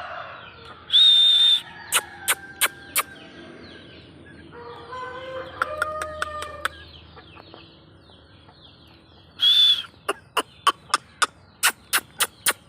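Japanese Shamo chickens calling, with a drawn-out call about five seconds in. Two loud harsh bursts, the loudest sounds, come about a second in and near the end, followed by a quick run of sharp clicks.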